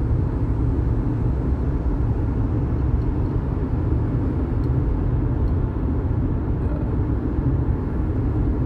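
Steady low road and engine rumble heard from inside a moving car's cabin.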